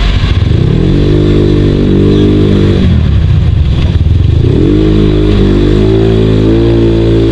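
Motorcycle engine running on the move. Its pitch rises as it speeds up, drops about three seconds in, then climbs again and holds steady.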